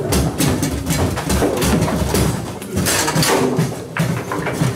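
Table football match in play: the ball cracking against the players' figures and table walls, and the rods knocking and sliding in their bearings, in a busy run of sharp knocks and clatter.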